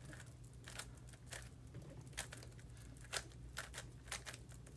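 Rubik's Cube middle slices being twisted by hand: a series of short, faint plastic clicks at irregular spacing, with the loudest one near the end.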